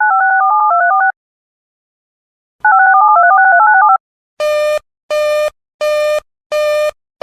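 Electronic emergency-alert tones between two broadcast alerts. Two bursts of rapidly stepping two-pitch electronic tones, about a second long each, are followed by four short, harsh buzzes at a steady rhythm of about one every two-thirds of a second.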